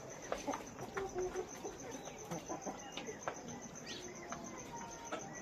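Chickens clucking softly and pecking, with scattered short calls and clicks. A steady, finely pulsing high trill runs underneath.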